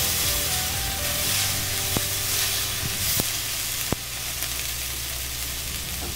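Sliced onions, garlic and ginger sizzling steadily in oil in a cast iron Dutch oven. A spatula stirs and scrapes them, knocking against the pot a few times in the middle.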